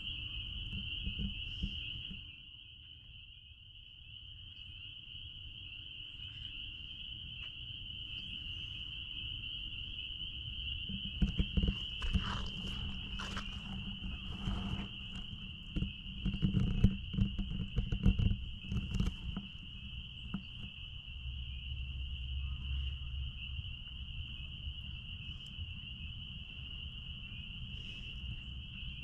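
Spring peepers in full chorus: many high, piercing peeps blending into one continuous shrill ring. Underneath runs a low rumble, and a cluster of louder knocks and rustles comes midway.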